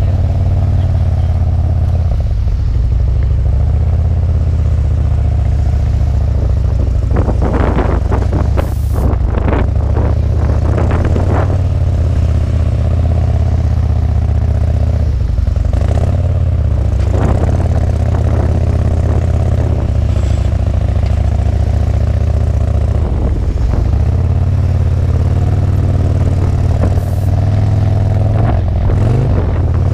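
Harley-Davidson V-twin motorcycle engines running steadily at low speed, with a rougher, clattery stretch about a third of the way in.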